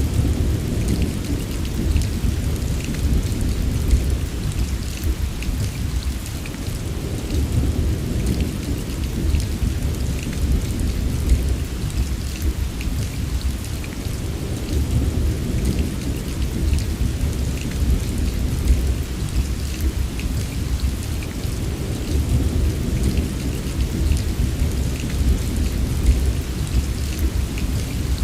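Steady heavy rain, a dense patter of drops over a continuous low rumble of thunder.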